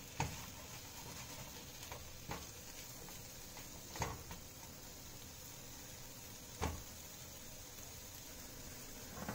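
Masala-coated potato pieces frying in a pan with a little oil over a medium flame, giving a faint, steady sizzle with a few soft clicks.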